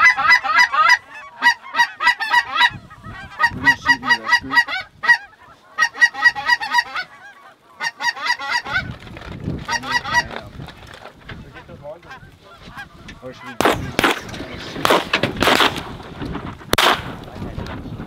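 Flock of Canada geese honking in flight: a dense chorus of overlapping calls in three spells over the first seven seconds. A few short, loud rushes of noise follow near the end.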